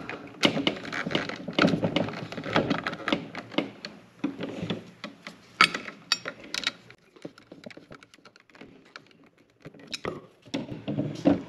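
Stiff 6 gauge wire being worked into a generator inlet's terminal, with a screwdriver on the terminal screw and a steel electrical box being handled: a busy run of clicks, taps and scrapes, quieter for a few seconds, then a few more sharp clicks near the end.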